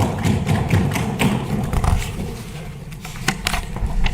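Many legislators thumping their desks in approval, a dense irregular patter of knocks.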